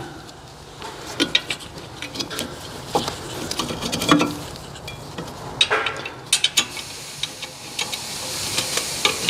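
Scattered metallic clicks and knocks of caliper bracket bolts and tools being handled during a rear brake job, coming in small clusters with a growing hiss near the end.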